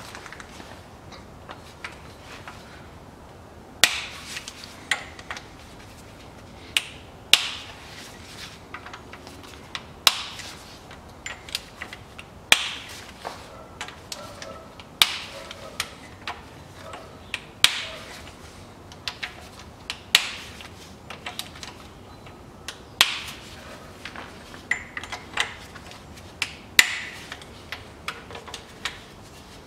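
Camshaft bearing cap bolts on a Toyota 3S-FE twin-cam cylinder head being broken loose in turn with a wrench: a string of sharp metallic cracks, each bolt letting go, every second or two at uneven intervals, with lighter clicks in between.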